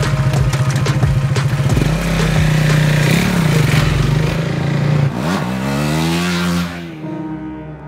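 KTM 390 single-cylinder motorcycles running and pulling away. About five seconds in, one accelerates with a rising then falling engine note, and then the sound fades.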